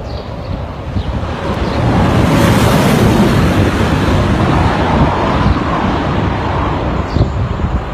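Jaguar I-Pace electric car passing at high speed: a rush of tyre and wind noise swells to a peak about three seconds in, with a faint falling tone as it goes by, then fades slowly as the car pulls away. Wind rumbles on the microphone throughout.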